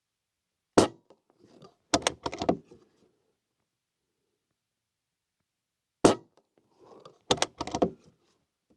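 Two shots from a Umarex Gauntlet PCP air rifle, about five seconds apart. Each shot is followed about a second later by a quick run of mechanical clacks from the bolt being worked to load the next pellet.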